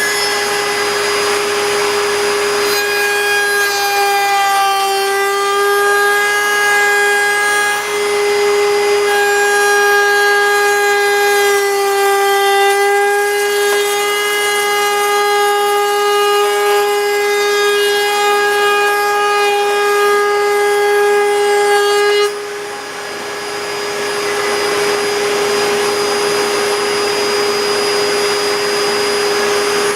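Table-mounted wood router running at full speed with an ogee bit, a high steady whine with a dust-extraction vacuum hissing under it. From about 3 to 22 seconds in the whine is fuller and dips slightly in pitch as the bit cuts the profile into the wood, then it drops back to a lighter free-running whine.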